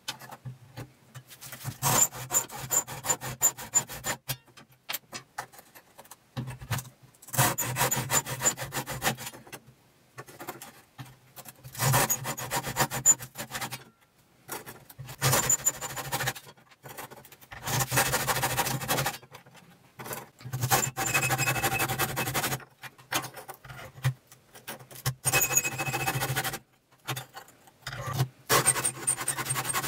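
Old hacksaw blade held bare in the hand, sawing through 60-grit sandpaper wrapped on a wooden dowel in an aluminium miter box. It goes in about eight short bouts of quick back-and-forth strokes, with brief pauses between them, one bout per drum cut off.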